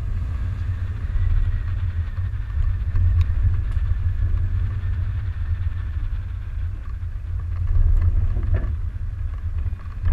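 Land Rover Discovery 2 driving slowly along a rough dirt trail: a steady low rumble from the engine and tyres, with a couple of brief knocks as it rides over bumps.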